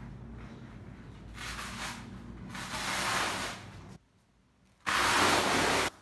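A large sheet being peeled off a wet acrylic painting, its surface unsticking and rustling: a swish that grows louder over about two seconds, then after a sudden break a louder, even hiss lasting about a second that starts and stops abruptly.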